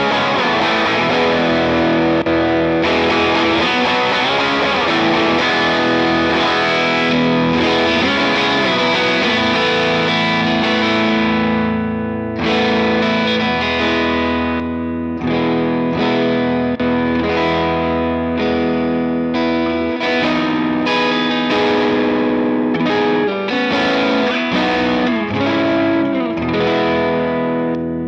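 Electric guitar played through a NUX Ace of Tone dual overdrive pedal, giving a driven, gritty tone. For about the first twelve seconds chords ring out and sustain. After that come shorter strummed chords with brief breaks between them.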